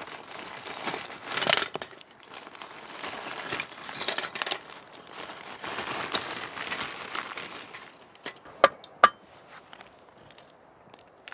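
Plastic bag crinkling and rustling as it is handled, in irregular bursts, followed by two sharp snaps near the end as the seal of a zip-top bag is pulled open.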